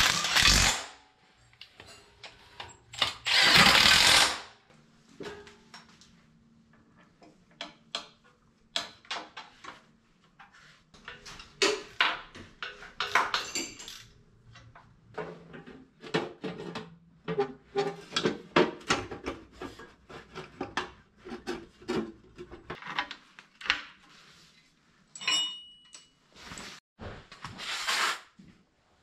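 Workshop sounds of hand tools and engine parts being handled during tractor reassembly: an irregular run of clinks, knocks and clicks. Short loud rushing bursts break in about three seconds in and again near the end.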